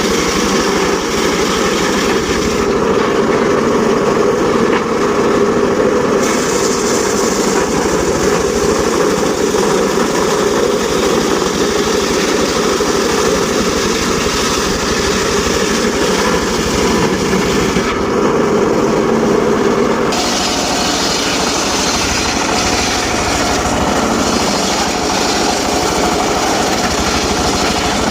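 Engine-driven mobile circular sawmill running steadily, with its sound shifting about 6 seconds in and again about 20 seconds in.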